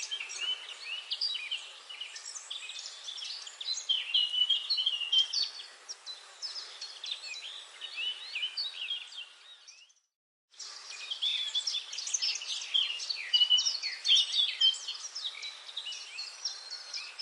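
Forest ambience: a dense chorus of many songbirds chirping and trilling over one another over a faint hiss. About ten seconds in, the sound cuts out completely for about half a second, then the chorus resumes.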